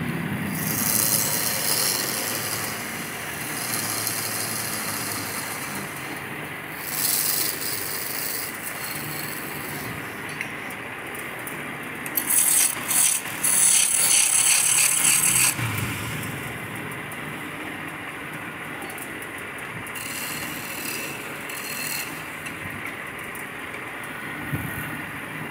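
Wood lathe running while a hand-held turning chisel cuts into a spinning wooden cylinder: several bursts of scraping cutting noise over the steady hum of the lathe. The longest and loudest cut comes about halfway through.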